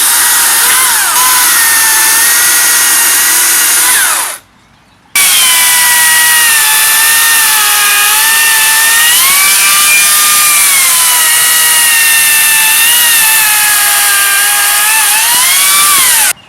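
Makita cordless electric chainsaw cutting wood: a loud, high whine whose pitch sags and recovers as the chain bites. It stops about four seconds in, starts again at once into a longer cut, and cuts off sharply near the end.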